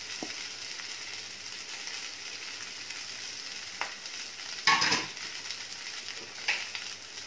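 Steamed rice and onion tadka frying gently in oil in a metal kadhai, a steady sizzling hiss, with a brief louder clatter about five seconds in and a couple of lighter knocks.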